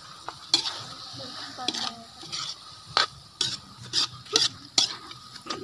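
Metal spoon stirring shredded banana heart and tuna in a stainless-steel wok, scraping and clinking against the pan in irregular strokes, with a faint sizzle underneath from the pan heating over the fire.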